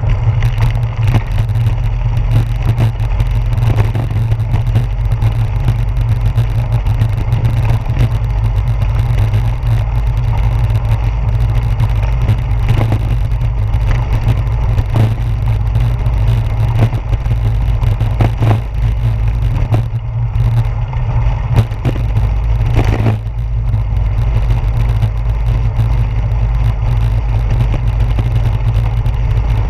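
Steady low rumble and rattle from a bicycle rolling over brick pavers, picked up through a handlebar-mounted GoPro Hero 4 in its housing, with frequent clicks and knocks as the wheels and mount jolt over the bricks.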